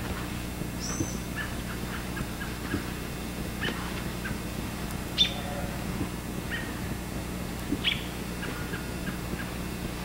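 Scattered short bird chirps, with a brief high whistle about a second in, over a steady low hum.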